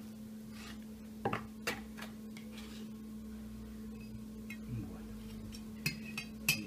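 A few short, sharp taps and clicks of kitchen utensils: a knife on a wooden chopping board, then a utensil against a small glass bowl near the end. A steady low hum runs underneath.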